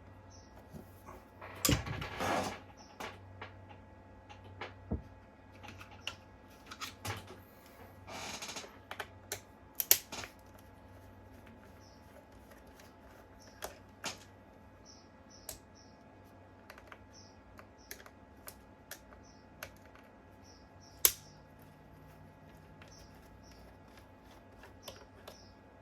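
Scattered clicks, taps and scrapes of hand tools and small screws on an e-bike battery pack's casing as it is being unscrewed. Louder sharp clicks come about two, ten and twenty-one seconds in.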